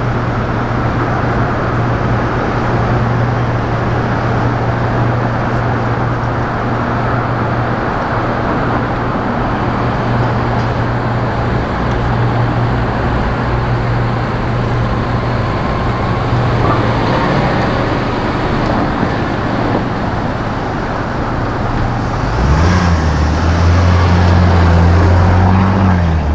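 City street traffic with a steady low engine hum from a nearby vehicle. About 22 seconds in, a second, louder engine comes in and runs for a few seconds.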